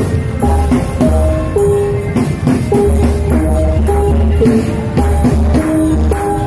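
Music with percussion: a melody of clear, held notes stepping up and down over low bass notes and drums.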